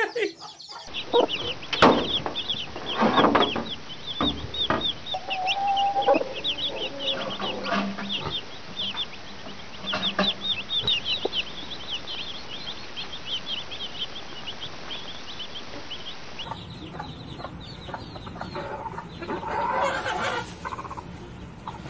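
Chicks peeping rapidly and continuously, several high chirps a second, with a hen clucking now and then among them. Near the end, after a cut, other chickens call louder.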